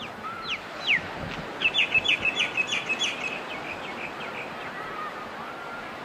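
A songbird singing: two quick falling whistles, then a fast run of about a dozen sharp repeated notes that fades out after about three seconds, over a steady background hiss.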